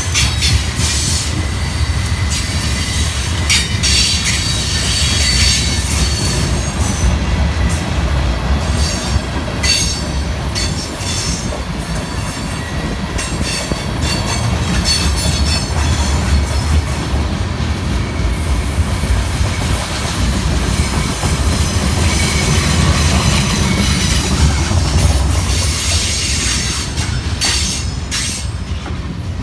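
Freight train cars, covered hoppers and then tank cars, rolling past close by: a steady low rumble of steel wheels on rail, with many sharp clicks from the wheels passing over rail joints and brief high squeals from the wheels.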